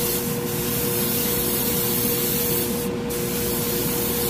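Harder & Steenbeck Grafo T1 airbrush with a 0.15 mm nozzle spraying paint, a steady hiss of air that breaks off briefly about three seconds in. A steady hum runs underneath.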